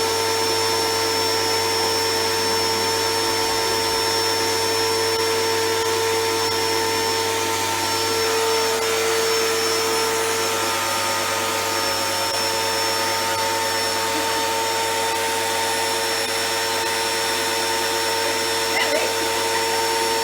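Titan TTB66PRW electric pressure washer running: a steady motor-and-pump drone with a constant whine. Its pitch lifts slightly for a few seconds near the middle.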